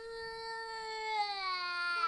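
A baby crying: one long, drawn-out wail that drops in pitch near the end.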